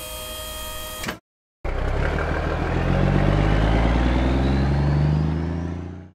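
Cartoon dump truck sound effects: a steady electric hum as the tipper bed finishes lowering stops about a second in. After a short gap the truck's engine starts pulling away, its pitch rising slowly as it accelerates, then fades out near the end.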